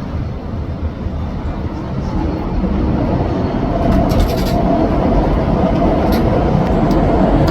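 Delivery drone's propellers, a steady whirring hum that grows louder about two seconds in, with a steady whine joining about a second later as the drone comes in close.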